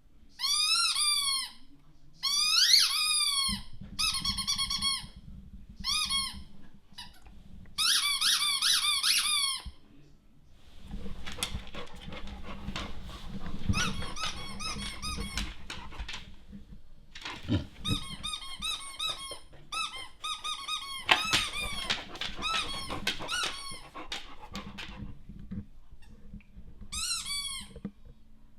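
Squeaky dog-toy sound effect played through a TV: bursts of squeaks, each rising then falling in pitch. From about a third of the way in, a dog's own sounds mix with the squeaks.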